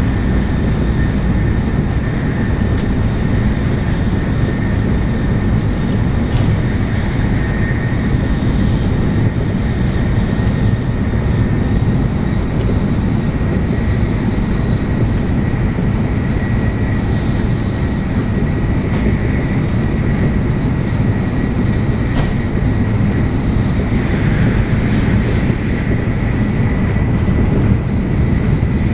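Tokaido Shinkansen bullet train running at high speed, heard from inside the passenger cabin: a steady, loud rumble with a thin high whine above it.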